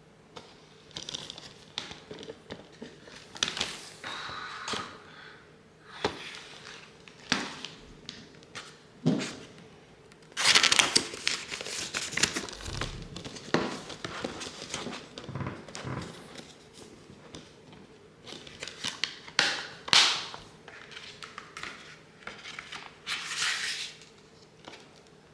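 Handling of a Blu-ray disc set's packaging: plastic and cardboard rustling and crinkling in irregular bursts, with sharp clicks and taps between.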